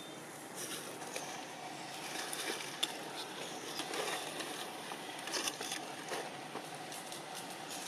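Steady outdoor background noise with scattered short, soft clicks and rustles.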